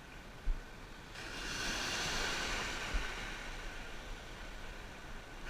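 Sea surf: a wave breaks and washes in about a second in, its hiss swelling and then slowly fading. A short low thump comes just before it.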